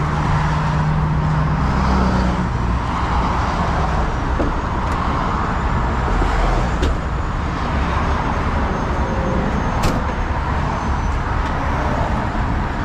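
A heavy truck's diesel engine running steadily under the steady rush of passing freeway traffic, with a few sharp clicks.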